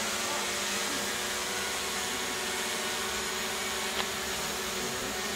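Quadcopter drone propellers running steadily, a whine at several fixed pitches over a rushing noise, with one sharp click about four seconds in.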